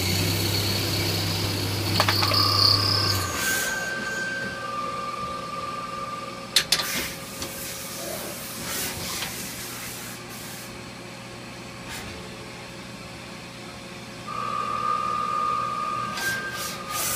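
Mori Seiki NLX2500-SY CNC lathe at work: a low spindle hum with a high whine for about three seconds, then it stops. Short whines follow as the turret and axes move, with clicks and a sharp clack about six and a half seconds in, a steady hiss underneath, and another whine near the end.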